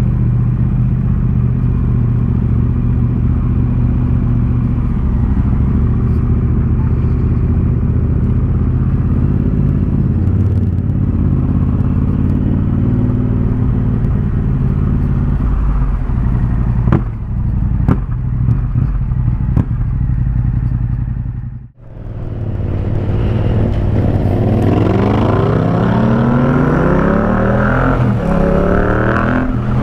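Yamaha MT-07 parallel-twin engine running through an Akrapovic 2-in-1 carbon exhaust. It holds a steady low-speed note for most of the ride, with a few sharp cracks partway through. After a brief sudden drop about two-thirds in, it revs up and down repeatedly, its pitch rising and falling through the gears.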